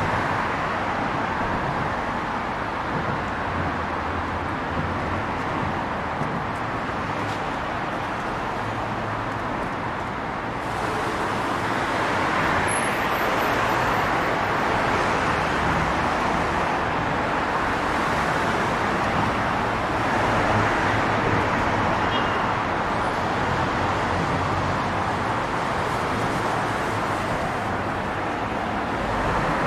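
Steady traffic noise from cars passing over and under a bridge: a continuous rush of tyres and engines with low rumble, swelling slightly as denser traffic passes about a third of the way in.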